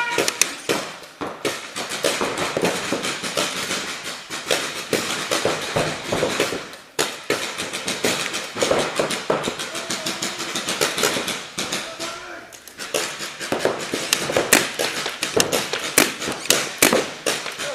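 Paintball markers firing: many sharp, irregular pops throughout, several guns shooting at once with no steady rhythm.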